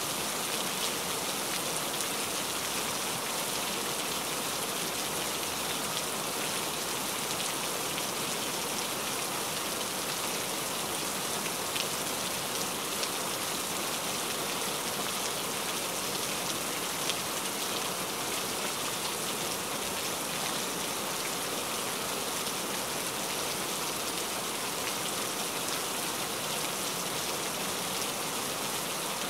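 Steady rainfall: an even hiss of rain with a few single drops standing out now and then.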